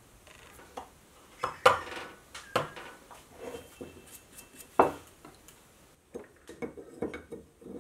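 Steel and plastic machine parts handled on a wooden workbench: a run of clinks and knocks, the two loudest about a second and a half in and near five seconds in. Quicker, lighter clicks follow near the end as a steel shaft with white plastic bushings is fitted into its metal frame.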